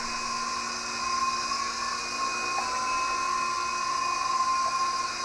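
Electric motor and rotor blades of a Fast Lane Jawbreaker mid-size toy RC helicopter hovering: a steady high whine over a rushing whir, a little louder from about a second in as it climbs.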